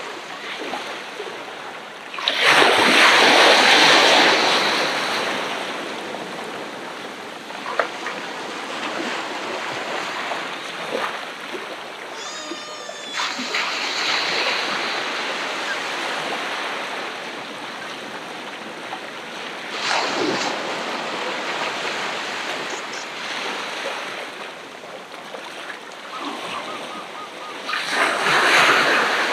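Ocean waves breaking on the shore and washing back. A big wave crashes about two seconds in and its wash fades over several seconds, with smaller breakers about twenty seconds in and again near the end.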